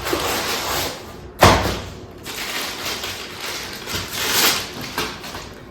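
Hands rummaging and handling objects: irregular rustling with one sharp knock about a second and a half in.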